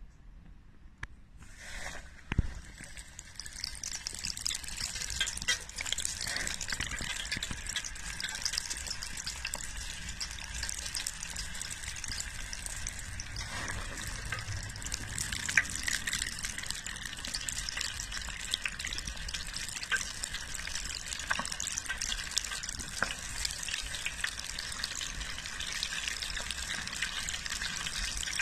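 Chicken pieces going into a deep fryer's hot oil, set to 170 °C. The frying starts about two seconds in with a dull thump, then runs on as a steady, vigorous bubbling sizzle full of small crackles.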